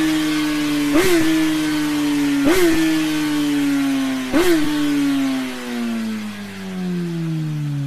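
Suzuki GSX-S1000 inline-four running through an Akrapovič titanium slip-on exhaust at high revs, its pitch slowly falling. Three short, sharp blips break the note. The revs drop faster near the end.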